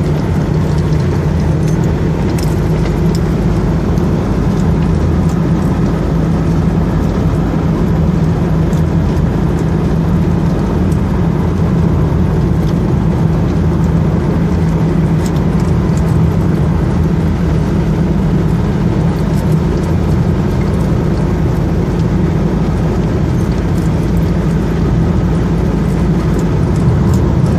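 Car driving steadily on a paved road: constant engine hum with tyre and road noise.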